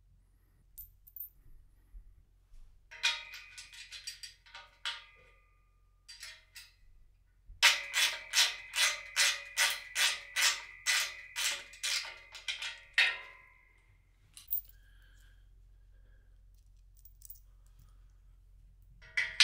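Steel bolts, washers and nuts being fitted into a black steel frame by hand: scattered metallic clicks and rattles, then a run of quick, even clicks, about five a second, that ring through the steel tubing.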